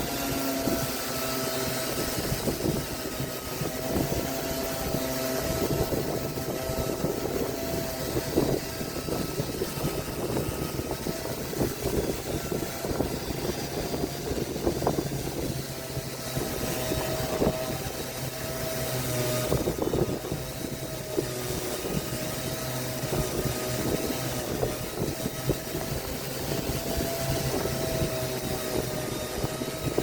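Electric woodworking power tool running steadily with a constant whine, with irregular rasping as it works against wood.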